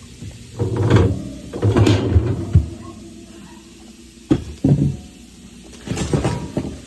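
Knocks and clunks of items and shelves being handled in a refrigerator being emptied, in four short bouts.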